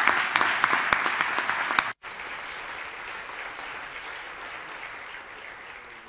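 Audience applauding, many hands clapping. The clapping is loud for about two seconds, cuts out for an instant, then carries on more softly and dies away near the end.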